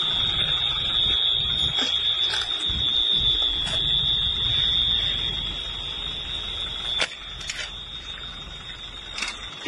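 A steady high-pitched alarm tone sounds without a break, over a low rumbling noise, with a few sharp clicks; about seven seconds in, a click is followed by the overall level dropping.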